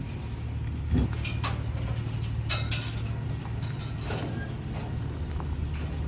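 Semi truck's diesel engine running steadily as it backs a livestock trailer up to the loading chute, with a few short sharp clanks between about one and three seconds in.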